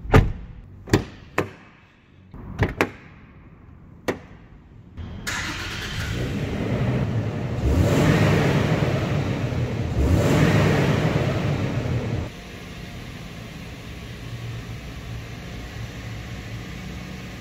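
Several sharp door clicks and knocks on a 2023 Toyota Land Cruiser 70-series pickup, then, about five seconds in, its 4.0-litre naturally aspirated V6 petrol engine starts up and runs louder for several seconds before dropping to a steady idle about twelve seconds in.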